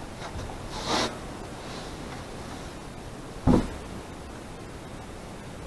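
A wooden sliding barn door being handled on its track: a short swish about a second in, then one solid thump a little past the middle.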